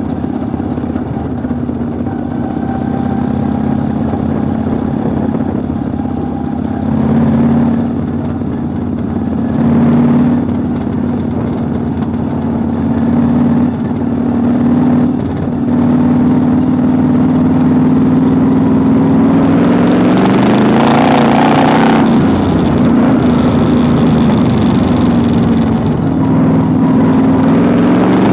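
Vintage modified race car's engine heard from inside the cockpit on a dirt track, running at part throttle with several short surges, then held harder from about halfway, its pitch climbing and falling a couple of times.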